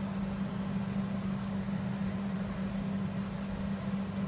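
Steady low background hum with an even hiss, unchanged throughout, with one faint tiny tick about two seconds in.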